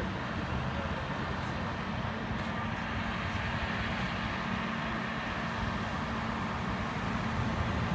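Steady noise of vehicle engines running and street traffic, an even sound with no distinct events.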